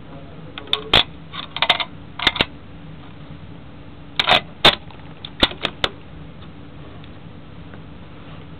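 Two clusters of short, sharp clicks and clacks, the first about a second in and the second about four seconds in, like small hard objects being handled.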